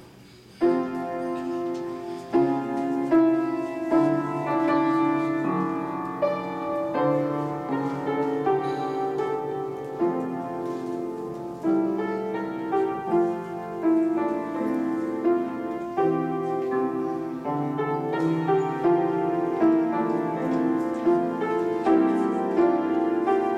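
Grand piano playing a tune of chords and melody, starting suddenly about half a second in.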